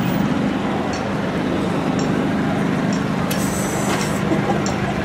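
City street noise: a steady low engine hum over a traffic rumble, with a few short high ticks.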